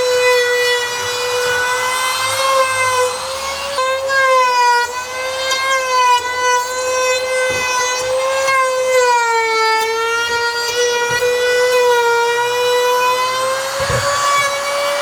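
Bosch wood router running, a loud steady high whine whose pitch sags a little and recovers a few times as the bit cuts into a wood edge.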